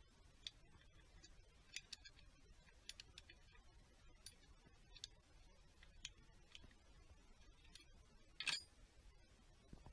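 Faint, irregular clicks of a ratchet wrench being worked on a bolt on the engine's cylinder head, with one louder metallic clack near the end.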